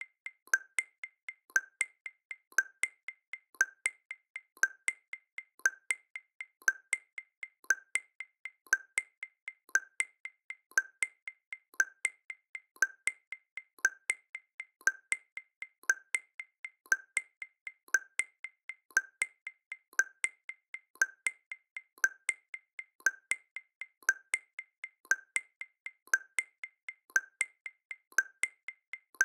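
Background music made of a dry wood-block percussion pattern: sharp clicks several times a second with a stronger accented click about once a second, and no bass.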